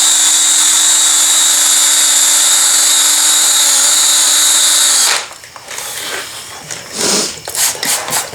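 DeWalt 18-volt cordless drill spinning a wet 1500-grit sanding pad on a plastic headlight lens. It gives a loud steady whine for about five seconds, then stops. A run of irregular clicks and taps follows.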